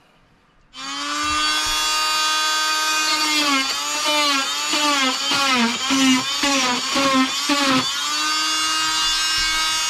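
Small corded handheld rotary cutting tool starting up about a second in and running with a steady high whine. Its pitch dips and recovers again and again as it bogs while cutting into the van's wooden panel, then steadies near the end.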